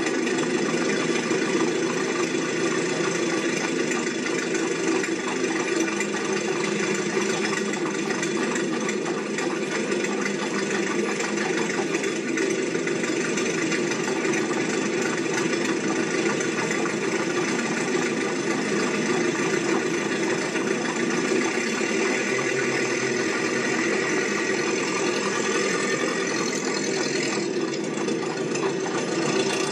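Steady mechanical engine-like drone running at an even level, with a short higher whine that rises and falls near the end.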